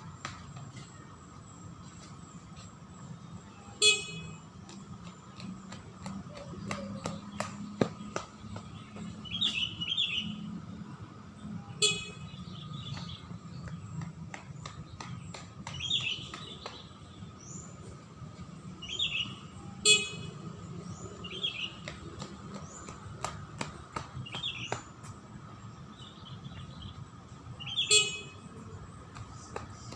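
Beep test (multistage fitness test) recording sounding a short electronic beep four times, evenly about eight seconds apart, each beep marking the end of a 20 m shuttle. Birds chirp between the beeps over a faint steady hum.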